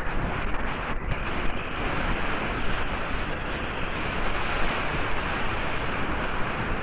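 Wind buffeting a helmet-camera microphone as a horse canters cross-country: a steady, rough rushing noise.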